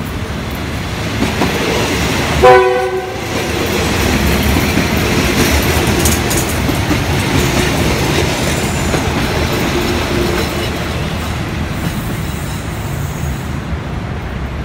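SRT diesel railcar sounds a short horn blast about two and a half seconds in, the loudest moment. It then runs past with steady rail and engine noise, which eases slightly near the end as it moves away.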